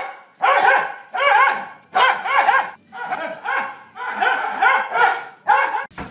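A dog play-barking at another dog: a string of about seven loud, drawn-out barks that bend up and down in pitch, each under a second long.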